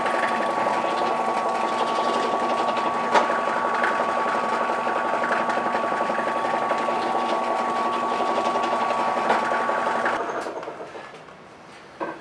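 Benchtop drill press motor running steadily with a constant whine while a small bit drills string holes in pine 2x4 trellis pieces. It fades out about ten seconds in.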